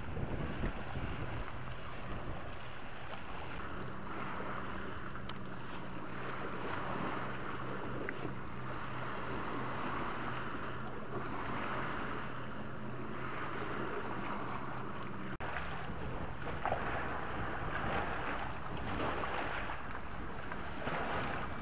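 Waves washing against a rocky shoreline with wind on the microphone, the wash swelling and falling. A low steady hum runs beneath it and stops abruptly about fifteen seconds in.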